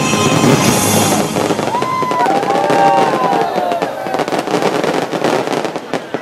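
Fireworks crackling and bursting in a dense barrage, with wavering whistle-like tones partway through. The crackle thins and fades near the end.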